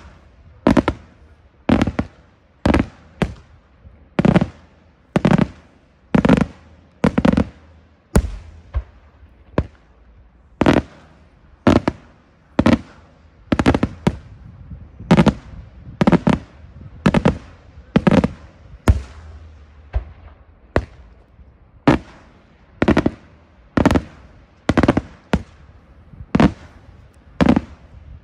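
Daytime aerial fireworks shells bursting overhead: a steady run of sharp, loud bangs about one a second, each with a short echo, with a brief pause about nine seconds in.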